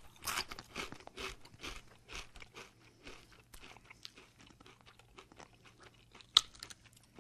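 Pringles Harvest Blends Smoky BBQ sweet potato crisps being crunched and chewed close to the microphone, the crunching strongest in the first second or so and then settling into softer, irregular chewing. A single sharp click sounds near the end.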